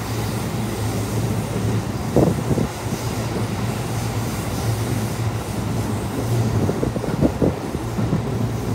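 Cabin noise inside a JR West 221 series electric train car (trailer car SaHa 221-12) in motion: a steady low hum and rumble, with a couple of short knocks from the wheels over rail joints about two seconds in and again about seven seconds in.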